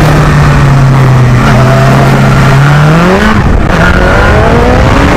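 Sport bike engine heard from the rider's helmet camera, holding steady revs through a bend, then revving up about three seconds in. The revs break off briefly, as at a gear change, and climb again from a lower pitch as the bike accelerates out of the corner.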